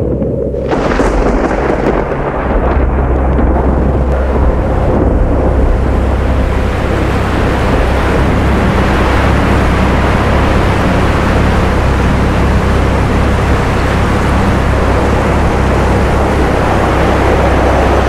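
Muddy flash flood rushing down a desert wadi: a loud, steady rush of water with a deep rumble underneath. It starts abruptly just under a second in and then holds steady.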